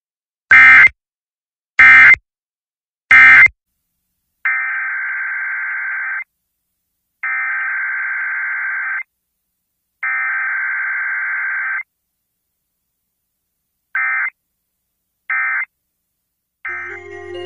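Emergency Alert System SAME digital data bursts, a harsh buzzing warble: three short, very loud bursts about a second apart (an end-of-message code), then three longer bursts of almost two seconds each (a new alert's header), then two more short bursts near the end.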